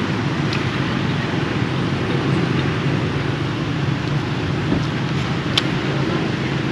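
Steady outdoor rumble of wind on the microphone mixed with the hum of road traffic, with a faint click about five and a half seconds in.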